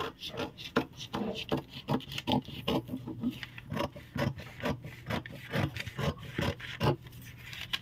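Scissors cutting through stiff brown pattern paper along a curved line: a run of repeated snips with the paper rustling.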